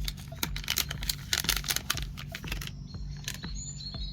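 New LED bulbs being taken out of their packaging: a quick run of crinkling, tearing and clicking, busiest in the first half.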